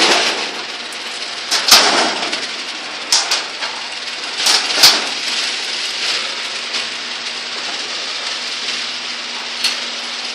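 Craftsman half-horsepower garage door opener running steadily as it moves the door, with several sharp clanks along the way.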